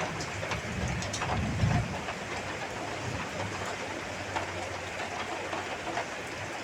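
Heavy rain falling steadily, with a low rumble of distant thunder that swells briefly about a second and a half in.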